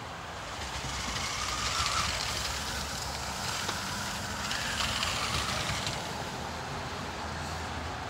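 New Bright Slide Winder remote-control car running, with its motors whirring steadily as its roller-studded wheels churn through snow. The wheels struggle for grip, since the design is not good for snow.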